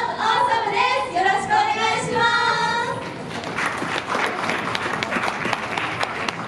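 Women's voices singing the final held line of a pop song, ending about three seconds in, followed by audience applause and clapping.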